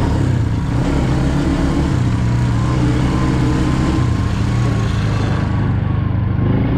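ATV engine running steadily, an even low drone with a faint thin whine above it.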